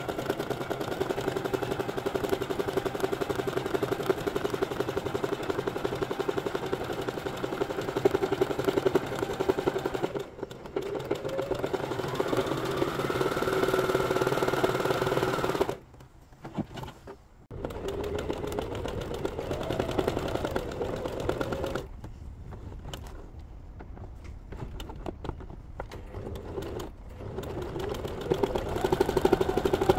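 Domestic sewing machine stitching zigzag embroidery in spells, a steady motor hum with rapid needle clatter. It speeds up, stops briefly about halfway, then runs softer and more unevenly before picking up again near the end.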